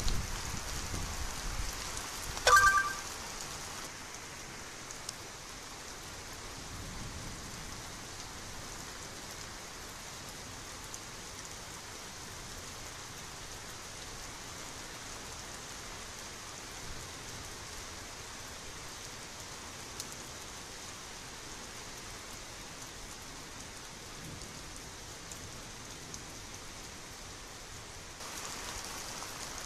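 Light rain falling steadily, an even hiss. About two and a half seconds in, a brief loud sound with a couple of clear tones cuts in once.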